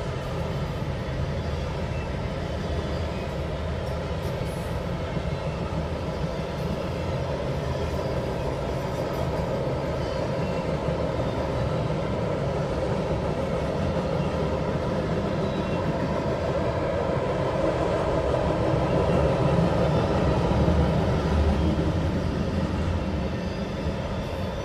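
Norfolk Southern double-stack intermodal freight cars rolling steadily across a grade crossing: a continuous rumble of wheels on rail, heard through the windshield of a car stopped at the gates. It swells somewhat about three-quarters of the way through.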